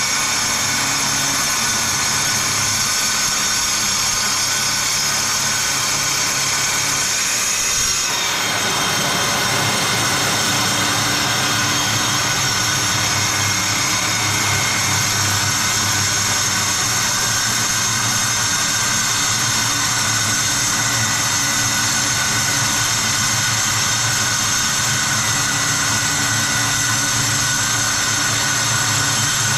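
Evolution S210CCS metal-cutting circular saw running under load as its blade cuts through half-inch steel plate: a steady, high-pitched motor whine over harsh grinding, with a slight shift in tone about eight seconds in.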